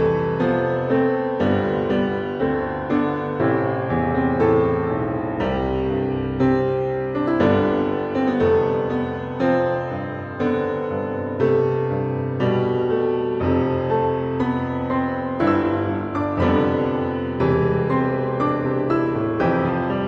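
Background piano music, a steady flow of struck notes that ring and fade.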